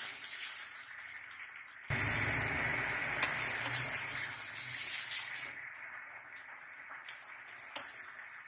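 Ladle stirring vegetables and broth in a metal cooking pot over a steady hiss of simmering. About two seconds in the stirring starts and gets louder for a few seconds, with a sharp clink of the ladle against the pot, and a few lighter clinks near the end.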